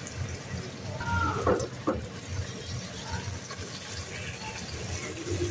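Ginger-garlic paste sizzling in hot oil in a nonstick wok while a plastic spatula stirs it, a steady frying hiss.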